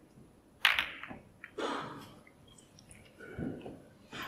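Snooker break-off: a sharp click of the cue tip on the cue ball, then about a second later a burst of ball-on-ball clicks as the cue ball strikes the pack of reds, followed by fainter knocks of balls against the cushions.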